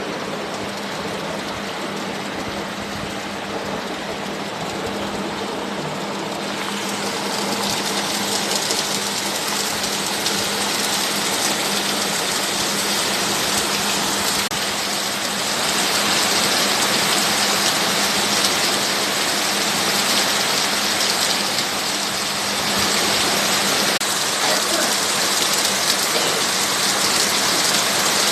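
Steady rain falling, growing heavier about seven seconds in and again about halfway through, with a faint steady low hum underneath.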